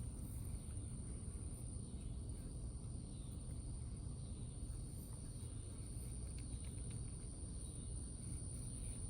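Outdoor background: a steady, high-pitched insect drone over a low rumble, with a few faint ticks.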